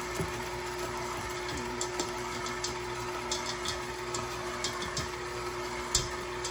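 KitchenAid Professional 6000 HD stand mixer running steadily with one constant motor tone, mixing crumbly chocolate chip cookie dough. Scattered light clicks come as chocolate chips are tipped into the bowl from a bag.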